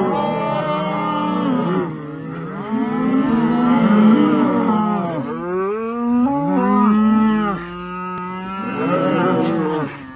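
Cattle mooing: a string of long, back-to-back calls, each rising and falling in pitch.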